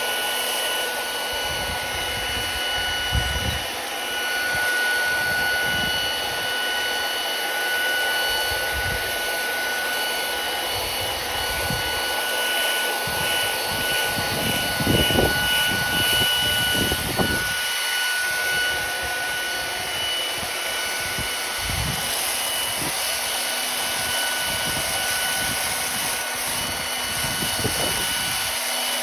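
Compressor-free BLSTRsander sandblaster running steadily: a loud hiss of blasting with a high motor whine, and irregular low bumps, heaviest about halfway through.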